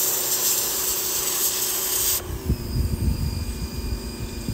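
1400 PSI pressure washer spray hissing against stone, cutting off suddenly a little over two seconds in. The machine's steady hum continues, with low rumbles and knocks.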